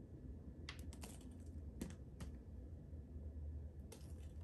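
Faint, scattered clicks and taps in small clusters, over a low steady room hum.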